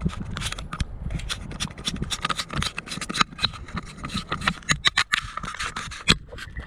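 Irregular scraping and rubbing close to the microphone, a dense run of quick clicks and scuffs: handling noise while the fish is held up to the camera.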